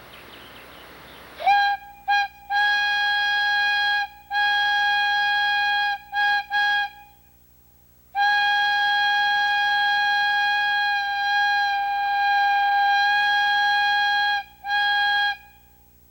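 Two-inch Lunkenheimer plain steam whistle blown on compressed air, sounding one steady high note. It goes in a series of blasts: a couple of short toots, two blasts of about two seconds, two quick toots, then after a pause one long blast of about six seconds and a last short one.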